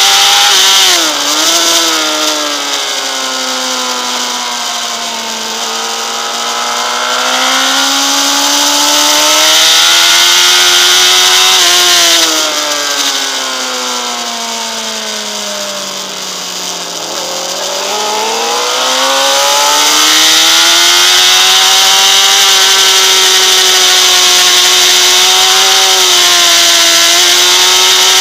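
Honda CBR600RR's inline-four engine revving high on track, with steady wind rush over the bike-mounted camera. The revs drop about a second in, climb, drop again to their lowest around the middle as the rider shuts off for a corner, then climb and are held steady for the last several seconds.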